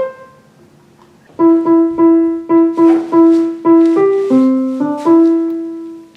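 Piano-voiced keyboard playing a short single-note melody after about a second of quiet. One note is repeated about three times a second, then a few other notes follow, and the phrase ends on one held note that fades away.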